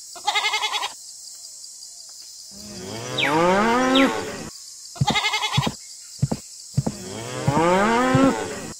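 Cow mooing twice in long, drawn-out calls, with short wavering sheep bleats near the start and about five seconds in.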